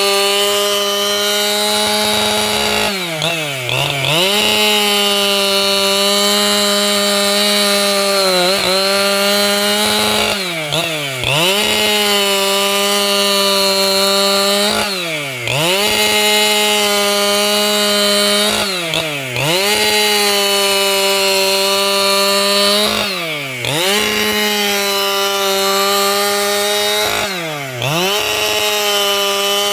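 A 585XP two-stroke chainsaw running at high revs while ripping wood. Its pitch dips briefly and climbs back about every four seconds, seven times in all.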